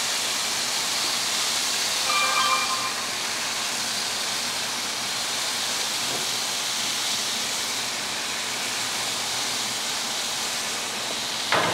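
Sauce-basted chicken sizzling on hot grill grates, a steady hiss, with a short high tone about two seconds in.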